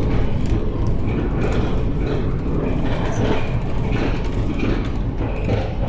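Channel Tunnel shuttle train carriage running, heard from inside the wagon: a loud, steady low rumble with rattling and clicking.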